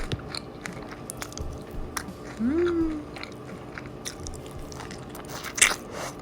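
A person chewing a crunchy mouthful of crackers with many small crunches. About two and a half seconds in comes a short rising hummed "mm", and near the end there is one louder crunch.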